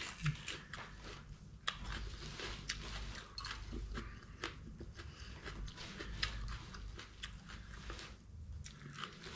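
Someone chewing a mouthful of raw red bell pepper, with faint, irregular crisp crunches.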